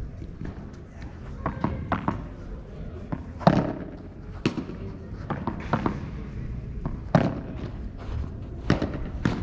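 A padel rally: the ball is struck back and forth with padel rackets, a sharp pop about every second, the loudest about three and a half seconds in.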